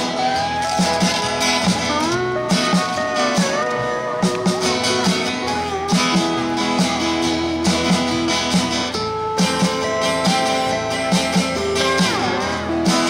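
Live country swing band playing an instrumental break: a steel guitar leads with sliding notes over acoustic guitar rhythm and a steady drum beat.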